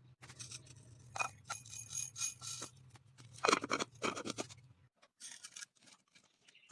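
Faint, intermittent scraping and rustling as dry spice ingredients are handled for grinding, over a low steady hum that stops about five seconds in.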